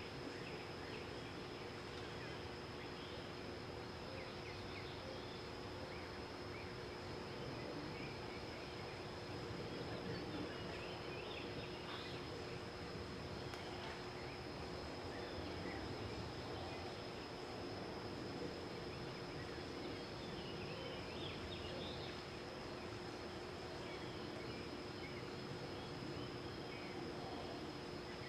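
Outdoor ambience dominated by a steady, high-pitched insect drone, over a low steady hum, with a few faint short chirps scattered through it.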